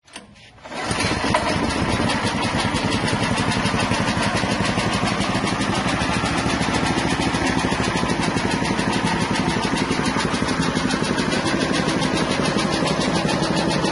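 Small single-cylinder petrol engine running at a steady speed, driving a soybean splitting and dehulling machine with an empty hopper.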